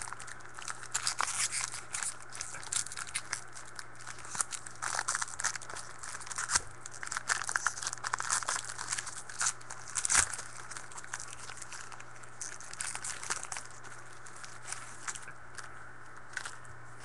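Foil wrapper of a trading-card pack being torn open and crumpled by hand: a dense run of crinkling and crackling that thins to scattered crinkles after about eleven seconds, over a faint steady low hum.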